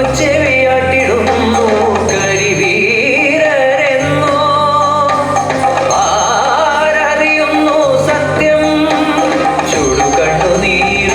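Indian-style song with a singing voice over instrumental accompaniment, playing continuously as dance music.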